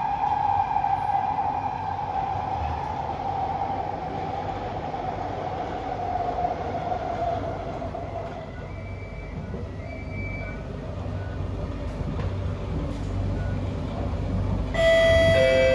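Kawasaki C151B metro train running, heard from inside the car: a whine from the traction motors slides slowly down in pitch and fades over the first half as the train slows, over a steady low rumble of wheels on track. Near the end a louder two-note chime sounds, higher then lower, the start of an on-board announcement.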